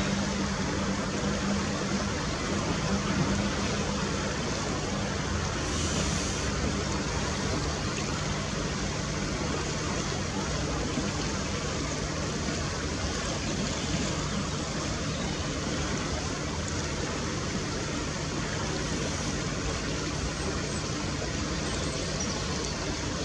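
Steady rushing background noise with a low hum underneath; no clear birdsong stands out.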